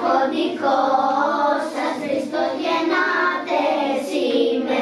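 A group of young children singing a Greek Christmas carol (kalanta) together, unaccompanied, holding the tune without a break.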